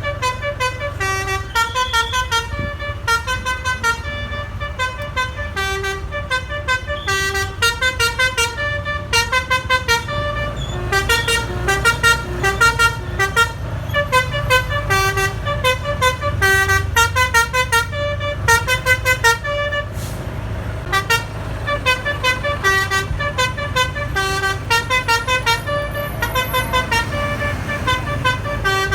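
Basuri telolet horn on an SJM Trans bus playing a quick melody of short multi-tone notes over a steady low engine rumble, with a brief break about twenty seconds in.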